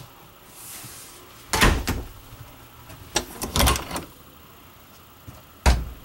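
Interior door in a fifth-wheel trailer being handled, giving a series of clunks and knocks. There is a loud pair about a second and a half in, a cluster around three and a half seconds, and a last sharp knock near the end.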